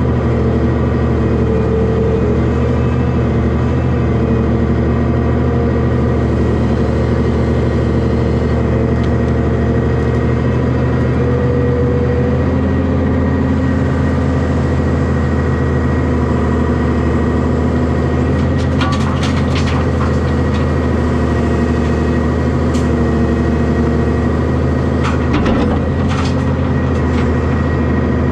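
Heavy diesel engine running steadily at a constant speed, with a few sharp clanks about two-thirds of the way in and again near the end.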